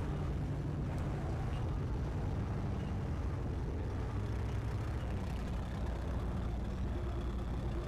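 Engine of a modified 4x4 competition truck running steadily while it crawls through a rock obstacle course.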